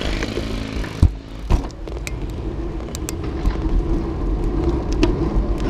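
Bicycle ride with wind and road rumble on the handlebar-mounted camera. About a second in come two sharp thumps half a second apart as the bike rolls off the path onto the street. A steady low hum joins past the middle.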